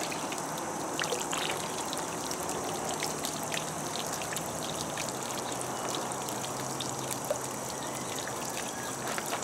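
Steady trickle and splash of muddy water as fine slimes slurry is poured from a cup into a homemade upwelling-water slimes concentrator, with a few faint ticks.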